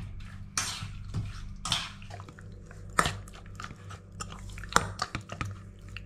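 Metal spoon turning raw boneless chicken thighs in a seasoning marinade in a stainless steel pot: irregular wet squelches of the meat, with a few sharp clinks of the spoon against the pot.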